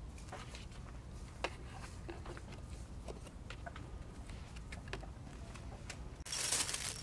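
A cat rummaging inside a paper shopping bag: faint scattered rustles and clicks over a low outdoor rumble, with one sharper click, then a much louder rustling noise in the last second.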